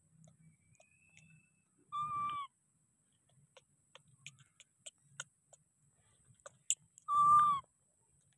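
Baby macaque giving two coo calls about five seconds apart, each a clear, steady note about half a second long that dips at the end. Faint scattered clicks fall between the calls.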